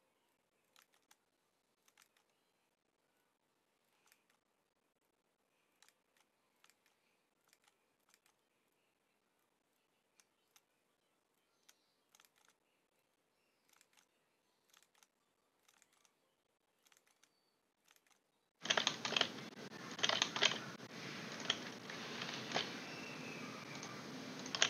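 Computer mouse clicks at an irregular pace as curve points are placed one by one. They are very faint at first; about three quarters of the way in they become much louder over a steady hiss of room noise.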